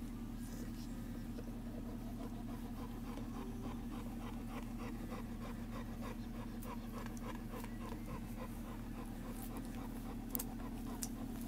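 Soft rhythmic sounds from a bullmastiff litter, about three a second, over a steady low hum, with a sharp click near the end.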